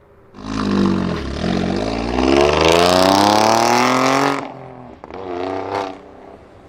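Twin-turbo six-cylinder performance-car engine accelerating hard: a loud start, then the engine note climbs steadily for about four seconds and cuts off abruptly. A short second burst of revs follows near the end.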